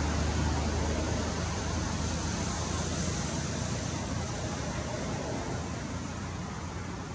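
Steady rushing background noise with a low rumble underneath, easing off slightly toward the end.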